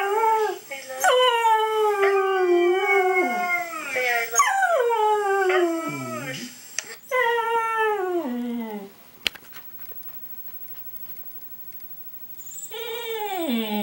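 Cocker spaniel howling: a run of long howls, each sliding down in pitch. After a pause of about three seconds another howl starts near the end.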